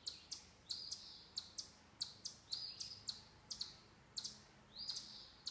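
Birds chirping and calling back and forth: quick sharp chirps, several a second, with a longer call that rises and then holds steady every second or two.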